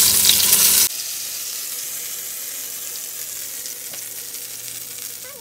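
Enchilada-sauce-soaked bread rolls (pambazos) sizzling as they fry in hot oil in a frying pan. The sizzle drops suddenly about a second in, then carries on quieter, slowly fading.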